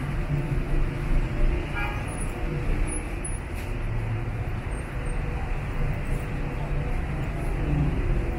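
Steady rumble of city street traffic, with a brief high tone about two seconds in.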